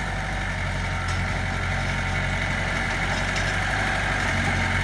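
Mitsubishi BD2F bulldozer's diesel engine running steadily, with a steady higher whine alongside it.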